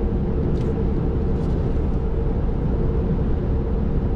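Cabin noise of a RAM 2500 AEV Prospector XL at highway speed, about 70 mph: steady road and wind noise with a constant hum, the tyre noise of its 40-inch Toyo Open Country mud-terrain tyres, which are noticeably loud. A sound meter reads about 65 to 70 dB in the cab.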